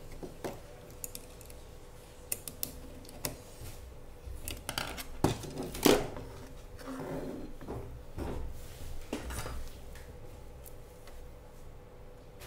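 Light clicks, taps and knocks of a projector power supply circuit board and small metal tools handled on a workbench, the loudest knock about six seconds in as the board is turned over, followed by softer handling noise.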